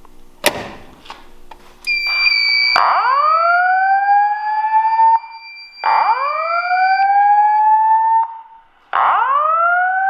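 A click as a Gamewell M46-1 Century pull station is pulled, then a voice evacuation fire alarm sounds through its speaker. A steady high tone comes on, and a slow whoop rising in pitch, about 2.5 s long, plays three times as the alert before the evacuation message.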